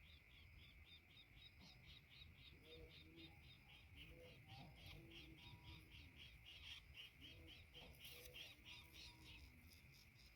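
Faint outdoor animal calls: rapid high chirping pulses, about five a second, over a steady high hum, with short low hooting notes scattered through.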